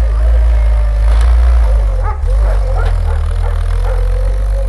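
Low, steady rumble of a GAZ-63 army truck's inline-six petrol engine as the truck drives away. Over it, a dog whines and yips repeatedly.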